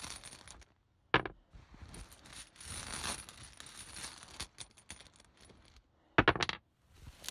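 Tarot tiles being rummaged and drawn by hand: rustling and small clinks of the tiles knocking together, with one sharp clack about a second in and a quick run of clacks near the end.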